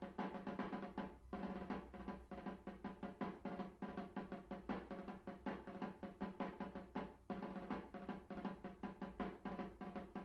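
A percussion ensemble playing rapid, dense drum strokes over a steady low tone, with brief breaks about a second in and about seven seconds in.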